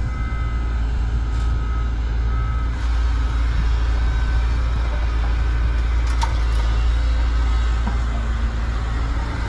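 Cat 313GC hydraulic excavator's diesel engine running steadily under load as the machine digs and swings, with a thin whine in the first few seconds.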